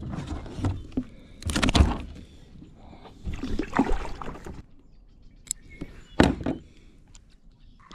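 Handling noise in a plastic kayak: bumps, scrapes and rustles against the hull as a freshly caught bass is lifted and handled. There are louder knocks about one and a half, three and a half and six seconds in.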